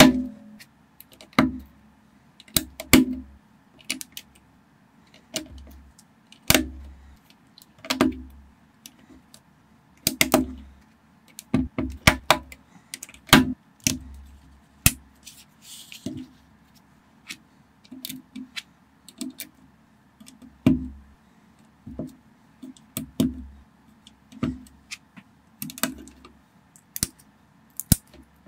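Plastic building bricks clicking and snapping together as they are pressed into place by hand, irregularly about once a second, several clicks with a dull knock of the model against the table.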